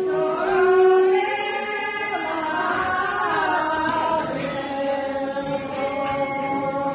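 A group of voices singing together in long, drawn-out notes, the pitch sliding between notes about two to four seconds in, then held steady again.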